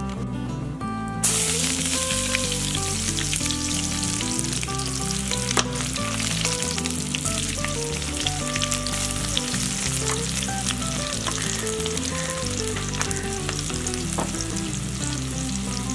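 Sliced onions and dry red chillies hit hot soybean oil in a metal wok about a second in and sizzle loudly, then keep frying with a steady hiss and scattered pops, over background music.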